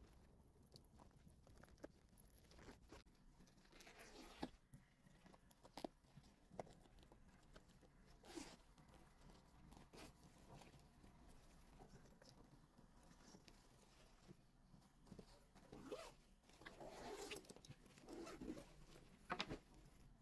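Faint handling of plastic-packaged purchases: rustling and tearing of plastic bags, scattered small clicks and taps, and a few longer rasping strokes near the end.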